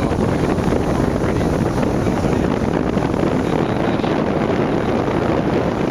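Steady noise of a tour boat under way: its engine running, with wind buffeting the microphone.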